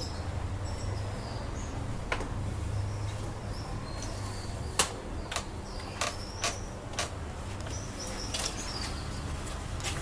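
Scattered sharp clicks and knocks from printer parts being handled during servicing, over a steady low hum. Faint short chirps sound in the background.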